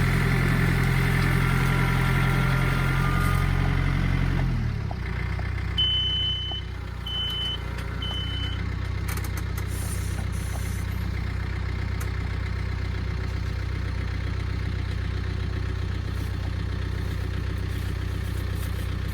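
Engine of a log-pulling vehicle running at higher revs, then dropping to a steady idle about four to five seconds in. Three short high beeps sound about a second apart just after the drop.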